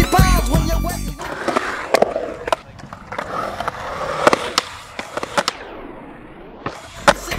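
Skateboard urethane wheels rolling on a concrete skatepark with several sharp clacks of the board, a quiet moment while the skater is airborne, then a sharp landing clack near the end. Hip hop music fades out in the first second.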